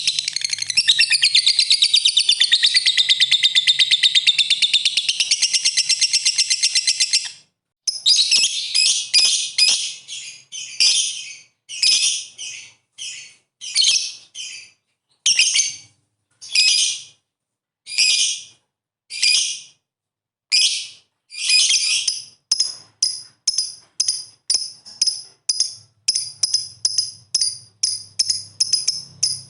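Lovebird 'ngekek' song: a long, rapid, unbroken chattering trill for about seven seconds that cuts off suddenly. It is followed by a string of separate short, sharp calls, about one a second at first and quickening to two or three a second in the second half.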